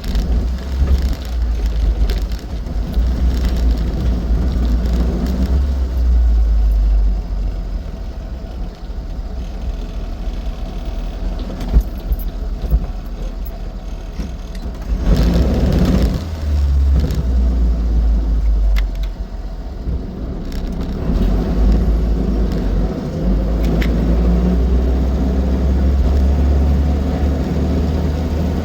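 Austin 7 Ruby being driven: the low rumble of its small four-cylinder side-valve engine and the road, swelling and easing as it goes, with a couple of sharp clicks about halfway through.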